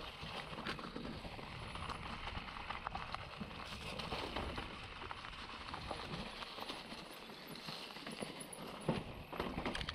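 Mountain bike riding down a rocky trail: tyres crunching over loose stones and the bike clattering over bumps, with one sharp knock near the end.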